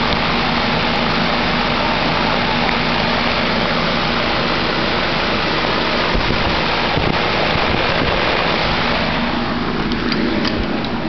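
1999 Goodman 4-ton straight-cool condensing unit running in cooling mode: a steady rush of air from the condenser fan over a low, even hum from the compressor. Near the end the rush grows fainter and a few light clicks come through.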